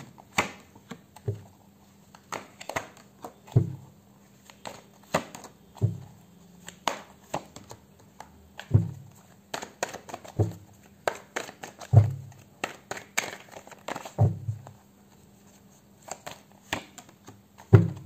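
Tarot cards being drawn from the deck and laid down on a cloth-covered table: irregular papery flicks and light taps, with a duller thud every two to three seconds.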